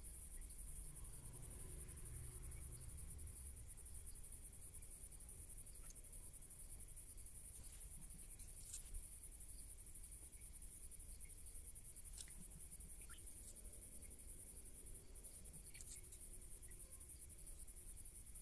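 Faint, steady high chirring of crickets, with a few soft clicks now and then.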